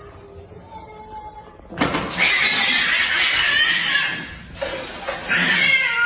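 An animal crying out loudly twice: a long, harsh cry, then after a short break a shorter one that falls in pitch.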